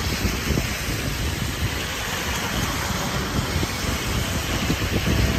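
Heavy rain hissing steadily, with cars driving across the rain-soaked road.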